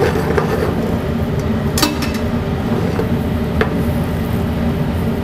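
Broccoli being stirred and tossed in a stainless steel sauté pan with melted butter and a little water, with a few sharp clinks of pan or utensil, the clearest about two seconds in and again a couple of seconds later, over a steady kitchen rumble.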